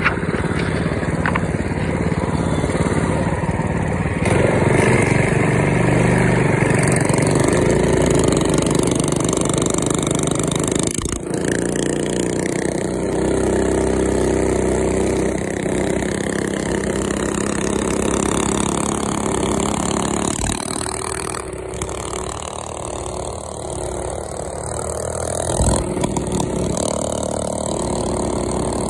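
Rupp mini bike's small engine running under way, its pitch rising and falling as the throttle changes.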